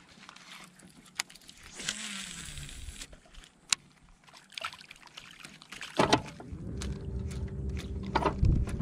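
A topwater bass lure being retrieved on a baitcasting reel: light clicks and handling noise from the reel, with small splashes of the lure on the surface. A low rumble sets in about six seconds in.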